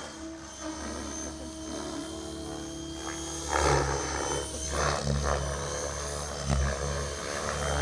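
Radio-controlled model helicopter flying aerobatics: a steady whine from its motor and spinning rotors, with several loud swells of blade noise from about halfway through as it manoeuvres.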